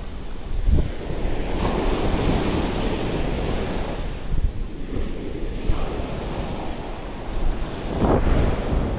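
Big waves breaking and washing up the shore, surging loudest about a second in and again near the end, with wind buffeting the microphone.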